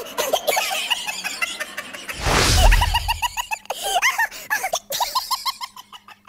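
High-pitched, cartoon-style voices giggling and laughing in quick repeated short notes, from the novelty soundtrack of a children's dance. About two seconds in, a loud whoosh with a deep boom cuts across them.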